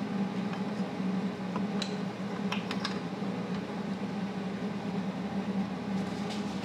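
Steady electrical hum, a fixed low tone, with a few light metallic clicks about two and three seconds in. It is heard while the exhaust tube pieces are being tack-welded.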